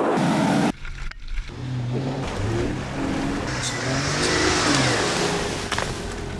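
An engine revving, its pitch rising and falling several times.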